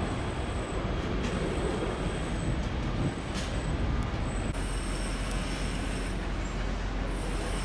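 Steady low rumble of a large vehicle passing close by, with a faint high, steady whine joining about halfway through.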